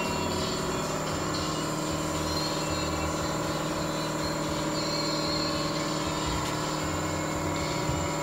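Steady mechanical hum of running machinery, several constant tones over a low, pulsing rumble, with no change through the stretch.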